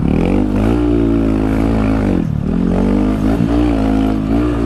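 Honda Grom's 125 cc single-cylinder four-stroke engine revving up and down over a rocky dirt trail, its pitch rising and falling with the throttle and dropping sharply about two seconds in.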